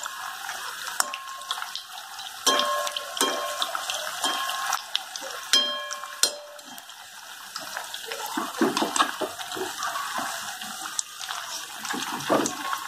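Besan-coated stuffed bread pakoda deep-frying in hot oil in a kadhai: a steady sizzle with bubbling crackle. A few metallic clinks in the first half, like a spoon against the pan.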